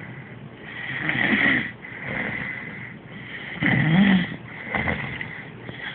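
Snoring: slow, repeated snoring breaths, loudest about a second and a half in and again about four seconds in, with softer breaths between.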